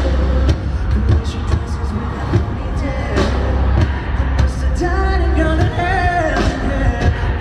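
Live pop band playing with heavy bass and drums, and a male lead vocalist singing a line about five seconds in.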